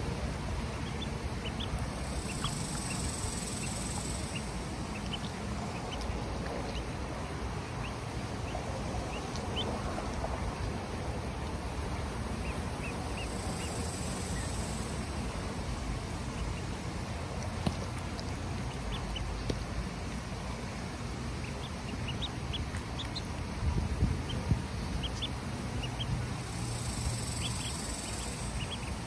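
Ducklings peeping: many short, high cheeps, over a steady background hiss and low rumble.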